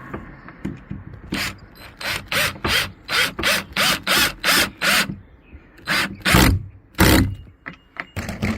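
Screw being driven into a gate-latch bracket with a hand screwdriver, a run of quick rasping, ratcheting strokes about three a second. Near the end come a few louder strokes and two heavier thumps.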